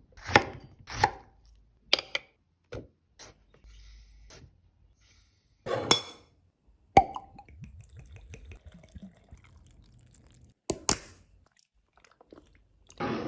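Scattered sharp knocks and clicks of kitchen food preparation, about a dozen at irregular intervals with quiet gaps between.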